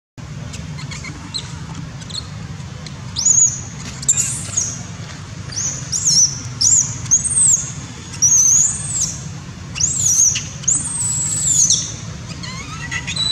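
Young long-tailed macaque crying: a run of about nine shrill, high squeals, each rising then falling, starting a few seconds in and ending near the end. These are the distress cries of a big infant being weaned and rebuffed by its mother.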